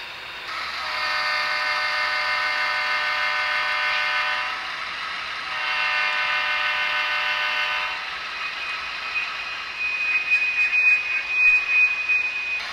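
Sound-decoder diesel horn on an Atlas HO-scale GE U-boat model locomotive, played through the model's small speaker: two long multi-tone blasts, the first about three and a half seconds long, then a short gap and a second of about two and a half seconds. A thin high steady tone with a fast rattle follows for the last few seconds.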